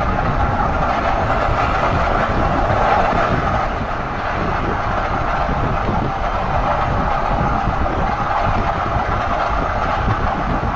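A 2016 Ford F-150 SuperCrew on the move, with steady road and drivetrain rumble and a constant droning hum over it. The hum is the noise the owner takes for a dry bearing.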